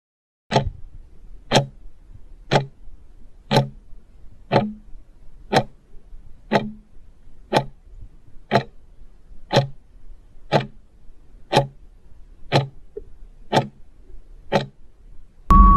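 Clock-style countdown timer ticks, one sharp tick a second, fifteen in all, marking the time given to answer a quiz question. Right at the end a loud sound with a steady beep cuts in.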